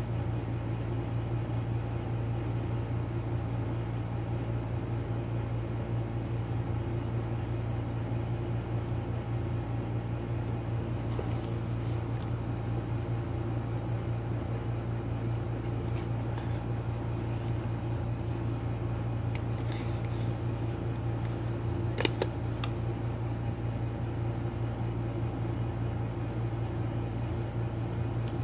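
Steady low hum of a running fan, with a few faint handling rustles and one sharp click of the packaging about two-thirds of the way through.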